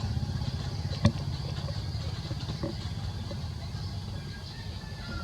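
A motor engine running steadily at idle, its low pulsing hum slowly fading, with a single sharp click about a second in.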